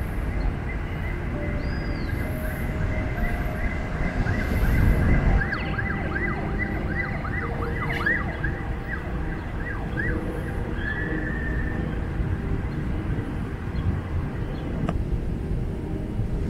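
A distant emergency-vehicle siren in a fast yelp, rising and falling about four times a second and growing louder before it fades out about nine seconds in. Under it runs a steady low rumble that swells briefly about four seconds in.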